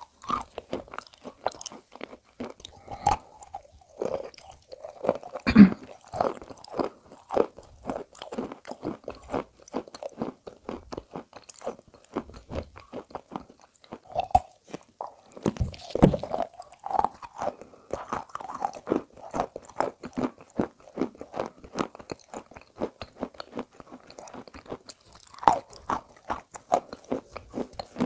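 Close-up crunching and chewing of a block of chalk coated in edible clay paste: a dense run of sharp crunches, with the strongest bites about five and a half seconds and sixteen seconds in.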